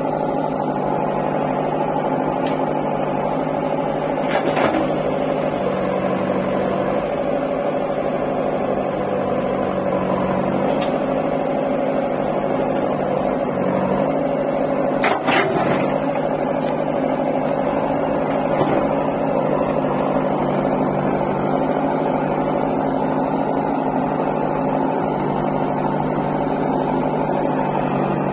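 JCB 4DX backhoe loader's diesel engine idling steadily. Two brief knocks sound through it, a few seconds in and again about halfway.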